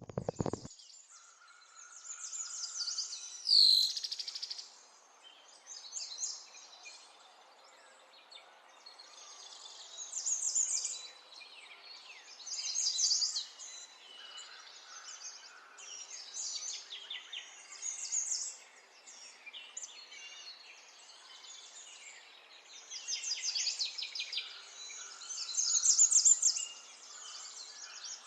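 Small birds chirping and singing in short trilled phrases every few seconds over a faint steady hiss, with one loud call sweeping downward about four seconds in.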